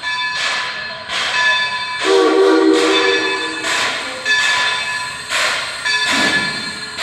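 Baldwin 26 steam locomotive chuffing slowly, about two exhaust beats a second, as it starts moving. About two seconds in, it sounds its Central Railroad of New Jersey three-chime whistle in one blast of about a second and a half.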